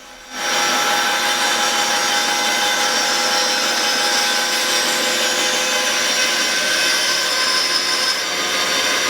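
A woodworking power tool starts about half a second in and runs steadily on wood.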